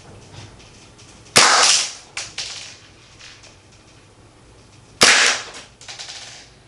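Marzen Walther PPK gas-blowback airsoft pistol firing twice, about three and a half seconds apart: each shot is a sharp crack with a short hissing tail, followed by a few softer clacks.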